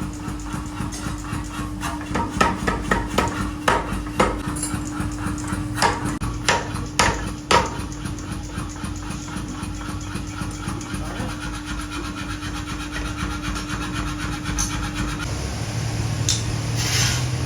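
Hand hammer blows in an axe-making workshop, quick and several a second at first, then a few heavier separate strikes, stopping about seven and a half seconds in, over a steady machine hum. Near the end the hum gives way to a deeper motor drone.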